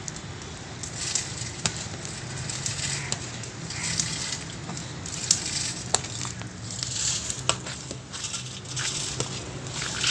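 Rice being scraped off a metal tray with a long metal ladle and tipped into a steaming daig, the grains sliding and pattering into the pot, with sharp clinks of the ladle against the tray and pot rim now and then.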